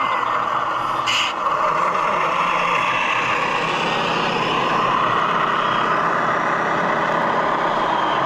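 Radio-controlled scale trucks and excavator running together, a steady mechanical whir of motors and engine noise, with a brief hiss about a second in.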